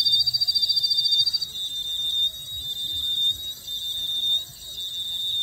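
High-pitched electronic alarm-like beeping: a fast-fluttering tone that stops about a second and a half in, over a slightly lower beep that keeps repeating.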